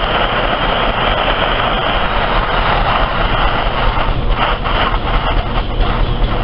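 Hose-fed blowtorch flame hissing steadily against a thermite charge in a sand-and-clay mold, trying to ignite it before it has caught. Scattered crackles come in from about four seconds in.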